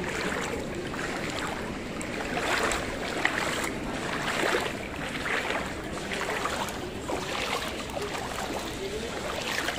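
Footsteps splashing through shallow floodwater on stone paving, a soft slosh roughly once a second.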